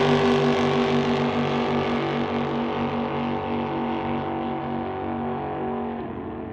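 Drag boat engines running flat out as the boats race away down the course: a loud pitched drone with a regular pulsing beat that fades steadily and grows duller, dropping off further near the end.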